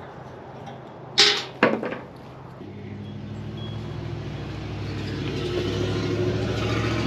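Two loud clanks of the steel smoker's parts being handled, about half a second apart, a little over a second in. Then a motor vehicle's engine hum that grows steadily louder.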